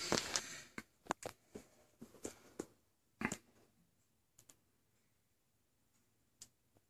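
Faint handling noise: scattered small clicks and taps while a syringe is handled and its needle brought to the skin, most of them in the first three seconds, then near quiet.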